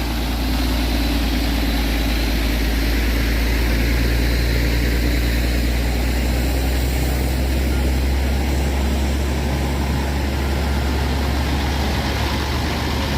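Heavy truck engine running steadily under load with a deep, unchanging drone, towing a stalled truck up the hill.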